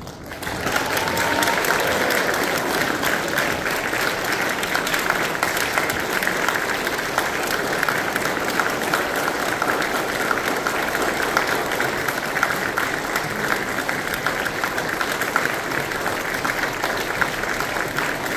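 Crowd applauding steadily, a dense even clapping that starts about half a second in and keeps up without a break.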